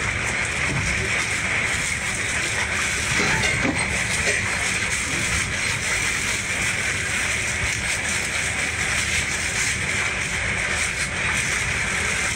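Steady drone of the Kawanua Majestik fast boat's engines and hull, heard inside the passenger cabin as it runs through heavy swell.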